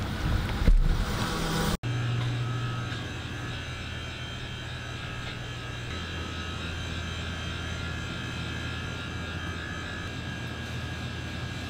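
Wind and handling noise on the microphone for under two seconds, then an abrupt cut to the steady low hum of a small shop's interior, with a faint high whine over it.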